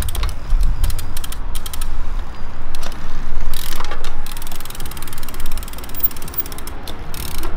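Trial bike's rear freewheel ratchet clicking in quick, buzzing runs again and again as the rider ratchets the pedals, with a couple of louder knocks of the bike on concrete.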